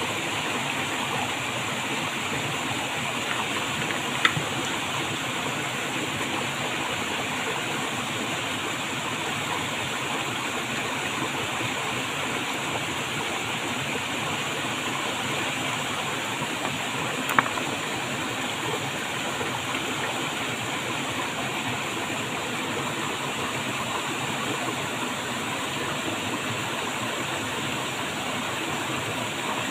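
Steady rush of flowing stream water. Two sharp clicks stand out, one about four seconds in and one about seventeen seconds in: stone tapping against stone as the stones are set in place.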